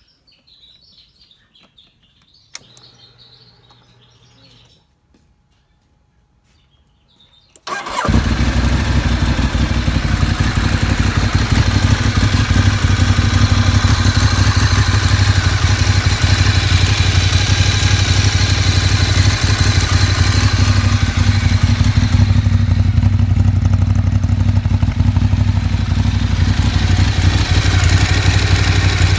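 Ducati 848 superbike's L-twin engine started: after a faint low hum a few seconds in, it catches about eight seconds in and settles into a loud, steady idle.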